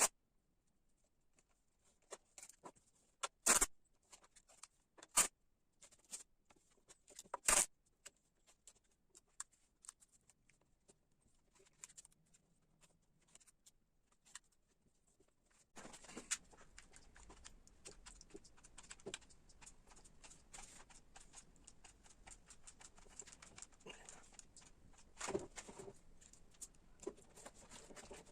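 Hand carving tools cutting into ash wood: a few separate sharp cuts, then from about halfway a steady run of small scraping, crackling cuts.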